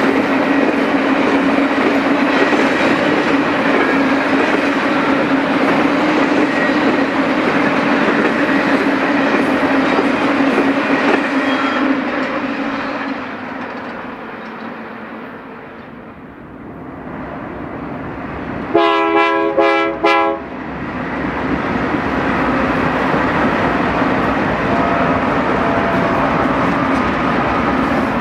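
Intermodal freight cars rolling past on the rails with a steady wheel hum, fading away as the end of the train goes by. About two-thirds of the way in, a diesel locomotive's air horn sounds in two short blasts, and a pair of BNSF diesel locomotives then pass loudly, engines and wheels running.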